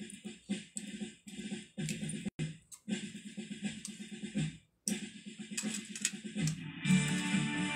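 Music with a choppy, rhythmic beat. It drops out briefly about two seconds in and again near five seconds, then becomes fuller and steadier near the end.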